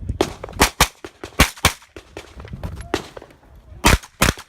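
JP Rifles GMR-15 pistol-caliber carbine firing rapid shots, mostly in quick pairs (double taps), during a timed USPSA stage run. About a second and a half in, a two-second pause comes before the next pair near the end.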